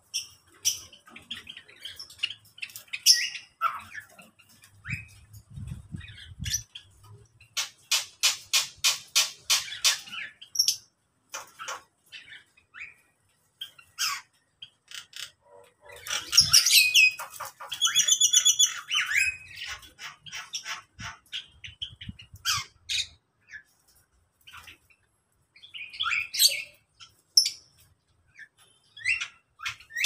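A mixed aviary of small cage birds chirping and squawking: scattered short chirps throughout, a quick run of sharp chip notes at about five a second around eight seconds in, and a louder harsh call with a few ringing pitched notes around sixteen seconds in. Soft low flutters of wings come in now and then as birds fly between perches.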